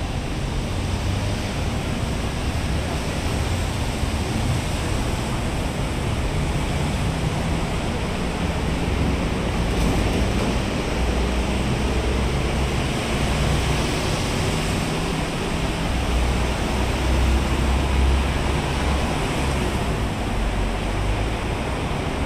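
Road traffic noise: a steady wash of tyres and engines from cars, buses and motorcycles passing on a multi-lane road, with a deep engine rumble that swells for a few seconds past the middle.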